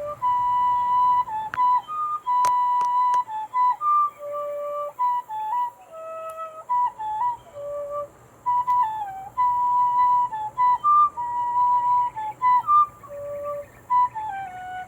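Copper high D tin whistle with a tunable handmade mouthpiece and cedar fipple block, played as a melody of clear, pure-toned held notes with short breaths between phrases. A few sharp clicks sound about two and a half seconds in.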